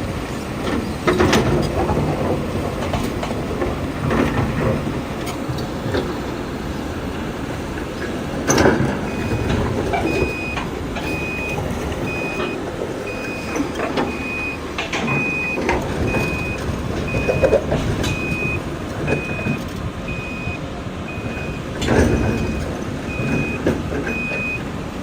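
A toy RC construction vehicle's reversing beeper sounding over and over from about nine seconds in, a high electronic beep roughly three times every two seconds, over a steady noisy background with a few knocks.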